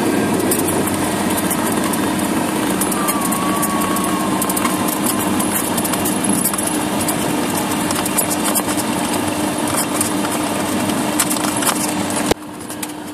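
Cessna 172S's four-cylinder Lycoming engine and propeller running at low power, a steady hum heard from inside the cockpit, with frequent small clicks and rattles as the aircraft rolls out on the runway after landing. The noise drops abruptly near the end.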